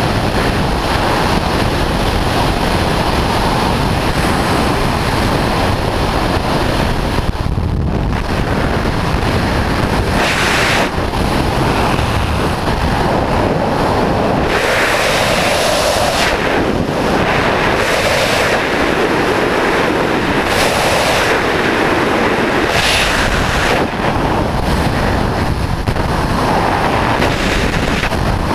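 Loud, steady rush of airflow over the microphone of a camera worn by a wingsuit flyer in flight. The hiss swells and eases several times.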